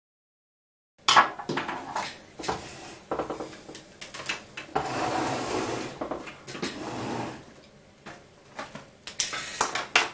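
Hands handling small metal and plastic printer parts and hardware on a workbench: irregular clicks, knocks and clattering, starting suddenly about a second in.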